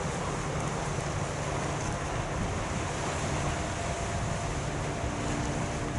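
Steady wash of water and wind noise on the microphone, with a faint low hum from the engines of a Red Funnel car ferry passing close by.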